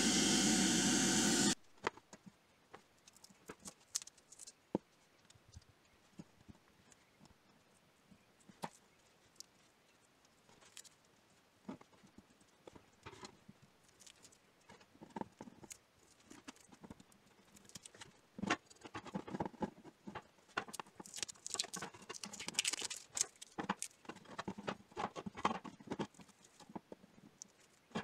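A sandblaster's hiss for about the first second and a half, cut off abruptly. Then scattered crackles and clicks of protective tape being peeled off the steel handles of a pair of old pincers, getting busier and crinklier in the second half.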